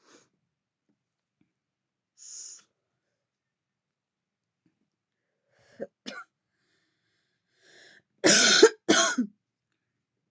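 A woman coughing after drawing on a vape. Two short, sharp catches come about six seconds in, then two hard, loud coughs near the end; a brief hiss of breath comes a couple of seconds in.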